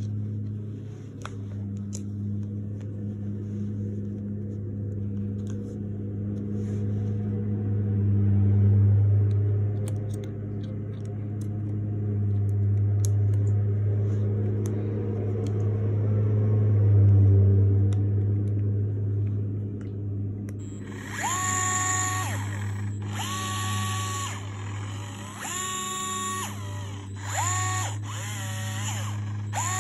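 DeWalt 8V MAX gyroscopic cordless screwdriver's motor running in about six short bursts in the last third, each whine rising and falling in pitch as its speed changes. Before that, a few clicks of the tool being handled and a drill bit fitted, over a steady low hum that runs throughout.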